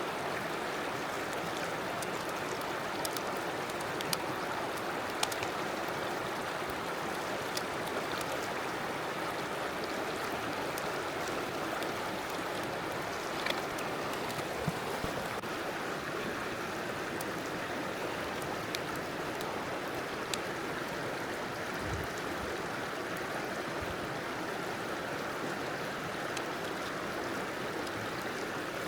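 River water flowing steadily, with a few faint sharp clicks scattered through it.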